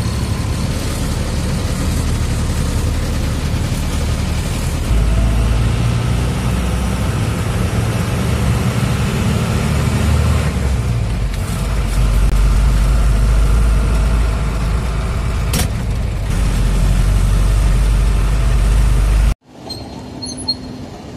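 Laden truck's diesel engine running as it drives off, heard from inside the cab: a steady low rumble that steps up in level about five seconds in and again about twelve seconds in, with one sharp click near the end. It cuts off suddenly shortly before the end, leaving a much quieter hum with faint ticks.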